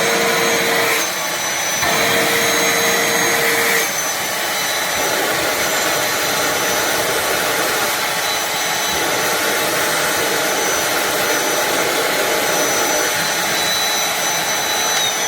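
MORCLIN 120W cordless handheld vacuum cleaner, run on a DeWALT 20V battery, running steadily with a high motor whine over the rush of air. A lower whistling tone comes and goes twice in the first few seconds.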